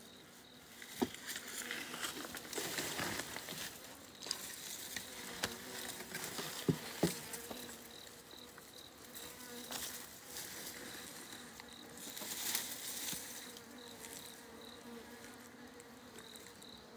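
Honeybees buzzing in a steady hum around a wooden hive box, with bursts of rustling and a few sharp knocks, the loudest two close together near the middle.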